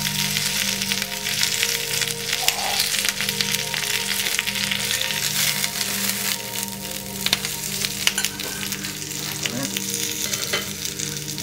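Mackerel fillet searing skin side down and a small bunch of spinach marking in hot pans, sizzling steadily with many fine crackles.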